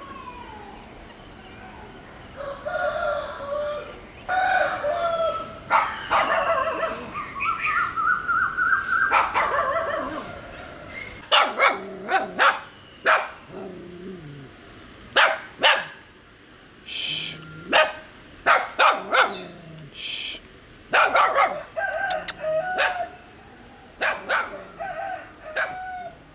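Dogs barking in many short, sharp barks, with longer pitched animal calls in the first half.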